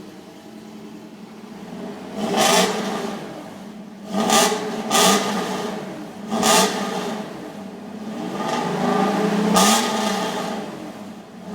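1995 Toyota pickup's 3.0 V6 breathing through Downey headers, a 2-inch exhaust and a Magnaflow muffler, idling and revved: four quick throttle blips, then one longer rev held for about two seconds near the end. The exhaust note is sharp and fairly high-pitched.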